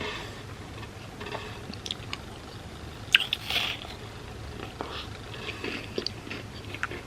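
Close-miked biting and chewing of hazelnut-cream wafer cereal in milk, with crunches and crackles throughout and the loudest crunch a little after three seconds in.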